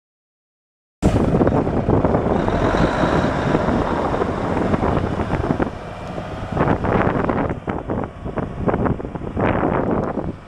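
The Cummins NHC250 six-cylinder diesel of a 1984 AM General M923 five-ton cargo truck running as the truck drives, mixed with wind on the microphone. It cuts in suddenly about a second in, and gusts of wind come through in the second half.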